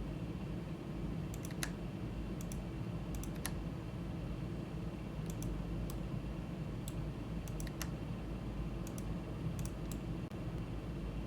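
Computer mouse and keyboard clicks, scattered in small clusters of two or three, over a steady low hum of room and computer noise.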